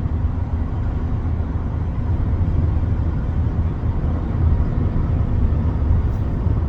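Steady low road rumble and engine noise of a moving car, heard from inside the cabin.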